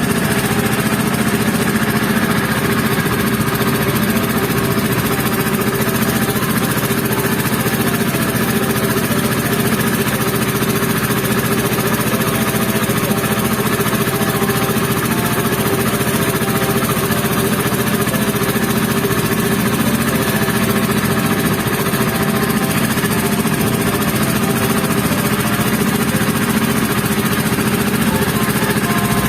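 Motorboat engine running steadily and loudly, holding an even pitch while the boat cruises.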